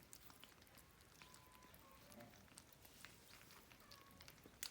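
Near silence with faint scattered clicks and ticks from kittens eating soft food and moving about, and a few faint, short high kitten mews.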